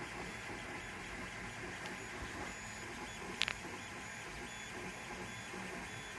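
Balco 3D printer running a print, with a steady mechanical whir from its motors. One brief sharp chirp comes about three and a half seconds in.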